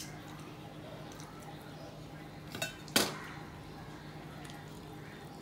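Stainless steel plate and bowls clinking as food is taken by hand: a light click at the start, then a small knock and a louder, briefly ringing clink about three seconds in.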